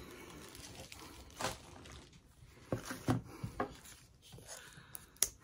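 Quiet room with a few scattered light taps and knocks: craft supplies being handled and set down on a table.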